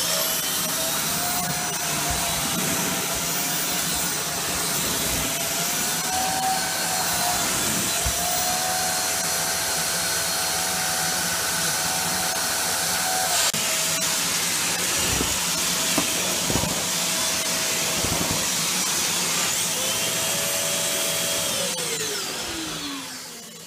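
Dyson Cinetic Big Ball Animal canister vacuum cleaner running on thick carpet: a steady high motor whine over rushing air, its note stepping slightly lower about halfway through. Near the end it is switched off and the whine falls away as the motor spins down.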